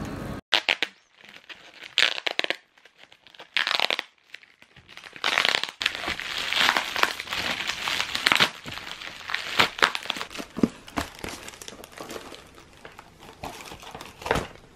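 Plastic padded mailer crinkling and rustling in fits and starts as it is handled and opened by hand.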